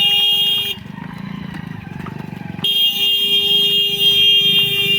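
A vehicle horn sounds twice: a short blast, then a longer one held for over two seconds, over a low rumble.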